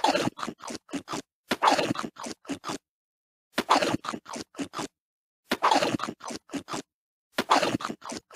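Cartoon eating sound effect: a crunching bite followed by two or three quick chomps, the group repeating about every two seconds.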